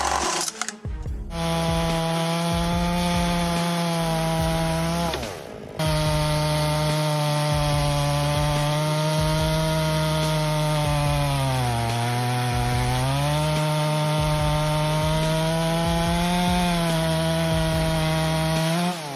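Echo CS 800P two-stroke chainsaw running at high revs while cutting wood. The engine note sags under load about twelve seconds in, then climbs back. It breaks off briefly a little after five seconds.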